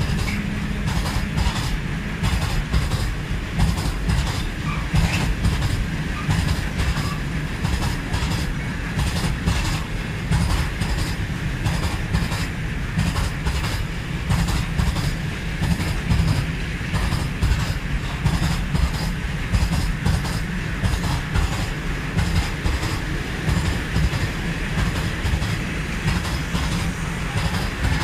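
Freight train of open-top wagons rolling past close by: a steady rumble of wheels on the rails with a continuous clickety-clack as the wheels cross the rail joints.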